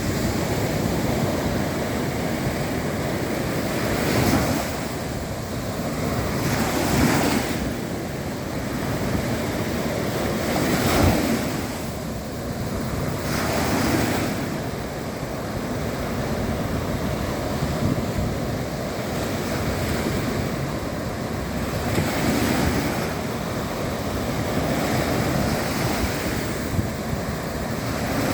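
Sea waves breaking and washing onto the shore in a steady surge, each swell rising and falling every few seconds, with wind on the microphone.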